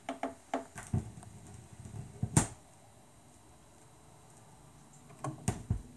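Scattered sharp clicks and pops, one louder about two and a half seconds in, from the stylus of a Technics SL-QD3 direct-drive turntable tracking the last grooves of a record before its automatic return.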